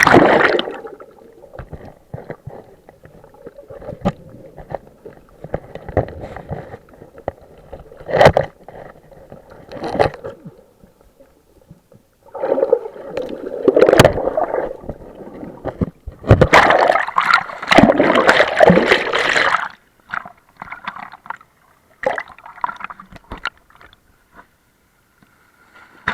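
Water gurgling and sloshing around a camera held underwater, coming in irregular bursts, with the longest and loudest stretch about halfway through.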